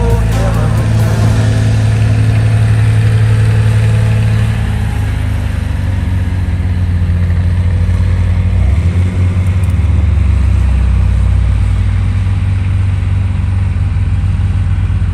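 John Deere 95 combine running steadily with a deep, even engine drone. Its note shifts slightly about four and a half seconds in and dips briefly near nine seconds.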